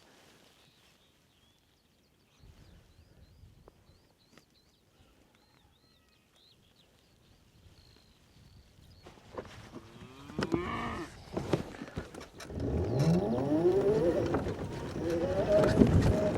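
A cow mooing: a long, loud call that rises in pitch over the last few seconds, after a quieter stretch with faint bird chirps.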